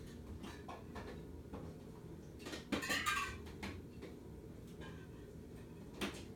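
Cast-iron spinner-motor ceiling fan running with a steady low hum, with scattered light clicks and rattles on top and a brief louder clatter about three seconds in.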